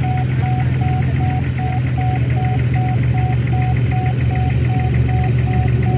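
Level-crossing warning alarm beeping steadily, about two and a half single-tone beeps a second, signalling that a train is approaching and the crossing is closed. A steady low rumble runs underneath.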